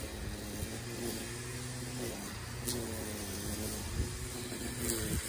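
An engine running steadily at an even, low pitch, with a few faint low thuds.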